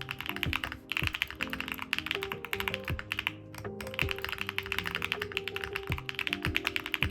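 Mechanical keyboard being typed on quickly: a custom Neo60 Core with HMX Latte switches and Osume keycaps, giving a dense run of key clacks with two short breaks, about a second in and again past the middle. Background music plays under it.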